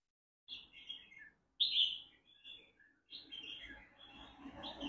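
Red-whiskered bulbul, a caged decoy bird, singing: three short warbled phrases about a second apart, the second the loudest.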